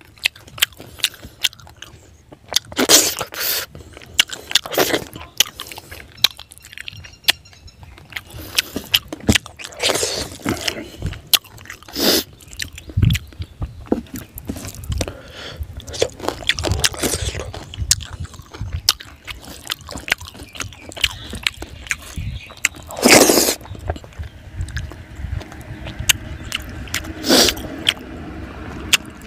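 Close-up eating sounds: a person chewing and biting into mouthfuls of fried fish head and rice, with irregular crunches and clicks and a few louder bursts, the loudest about three-quarters of the way through.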